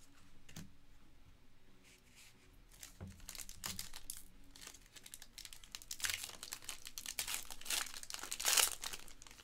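Foil trading-card pack wrapper crinkling and being torn open, the crackling densest in the last few seconds, after a few light taps of cards being handled.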